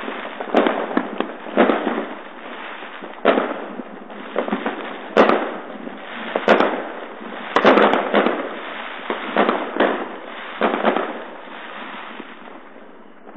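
Fireworks and firecrackers going off all around: about a dozen sharp bangs at irregular intervals over a steady din of more distant explosions and crackling, thinning out near the end.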